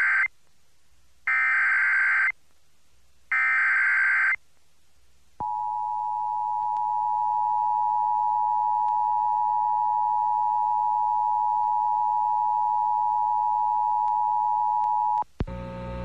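Emergency Alert System broadcast: the end of one burst of screeching SAME header data tones and two more full bursts, each about a second long. About five seconds in, the two-tone EAS attention signal (853 and 960 Hz) sounds steadily for about ten seconds and then cuts off. The sequence announces a flood warning.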